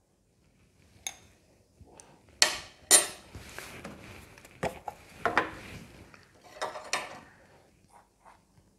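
Steel spoons clinking against a bowl and scraping through dry gram flour and cornflour as a pinch of baking soda is tipped in and stirred. The sound is a scattered series of sharp clinks with softer scraping between them.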